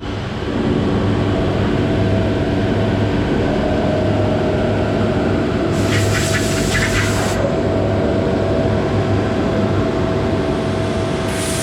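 CNC router running steadily with a constant hum and whine, with a harsher burst of cutting noise about six seconds in that lasts about a second and a half.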